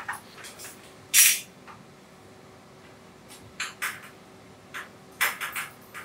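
Scattered sharp metallic clicks and clatters of fittings and hardware being handled at the base of a dilution refrigerator. The loudest is a short clatter about a second in, with a quick cluster of clicks near the end, over a faint steady hum.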